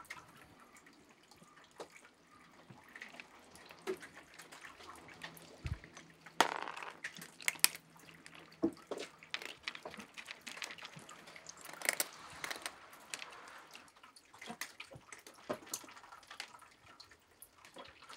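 Cats eating dry kibble from a plastic feeder bowl: faint, irregular crunching and clicking of kibble, with now and then a rustle as they jostle at the bowl.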